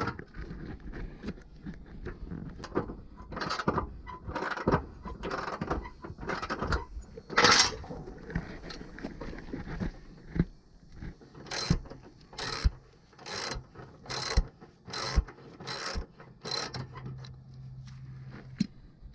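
Socket ratchet wrench clicking as it backs a half-inch nut off a bolt on a Craftsman T240 mower deck: irregular clicks and metal handling at first, then a run of about seven evenly spaced ratchet strokes, roughly one every three-quarters of a second.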